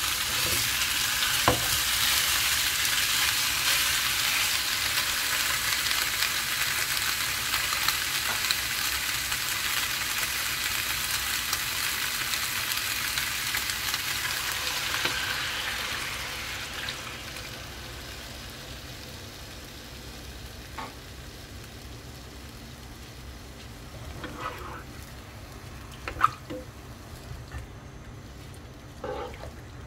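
Chicken pieces sizzling and being stirred in a frying pan. The sizzle is loud at first, then dies down about halfway through, leaving only a few light clicks and knocks.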